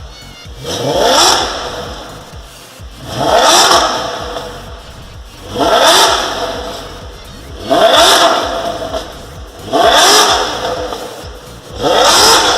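Maserati engine blipped repeatedly through a Hurricane aftermarket sport exhaust, giving a loud exhaust note. There are six revs about two seconds apart, each rising quickly in pitch and then dropping back toward idle.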